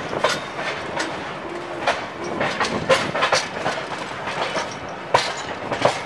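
Passenger train's coach wheels clattering over rail joints and points, irregular sharp knocks over a steady running rumble, heard from an open coach doorway.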